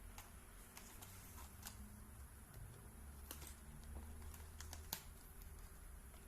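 Faint, irregular light clicks and taps of hands handling small plastic items, with the sharpest click about five seconds in, over a low background hum.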